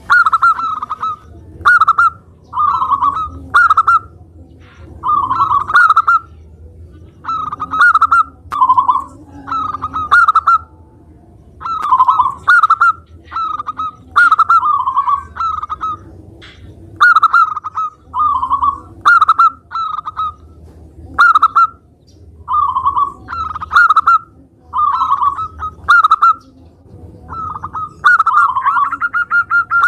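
Local-type zebra dove (perkutut) singing: a long string of short, rolling cooing phrases, each under a second, separated by brief pauses, with a longer unbroken phrase starting near the end.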